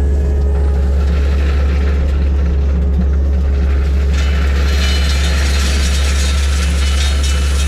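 Heavy earthmoving machine's diesel engine working under load with a steady low drone. From about four seconds in, a loud hissing, rattling noise is added on top.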